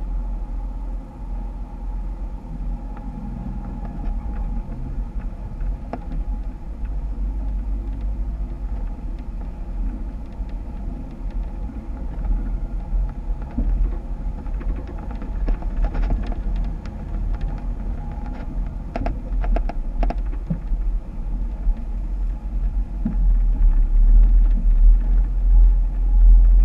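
Jeep off-roading: the engine runs with a heavy, steady low rumble, and scattered knocks and clicks come mostly between about 15 and 20 seconds in.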